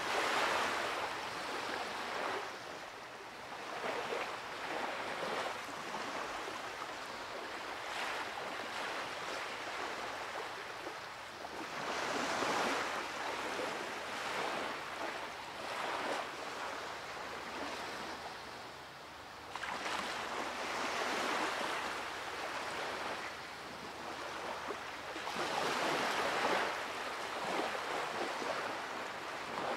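Ocean surf washing onto a beach: a steady rush of breaking waves that swells and ebbs every few seconds, with the strongest surges past the middle and near the end.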